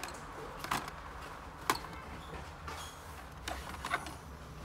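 Plastic blister packs on cardboard backing cards being handled on a display peg, giving about four short sharp clicks and crinkles, over a low steady hum.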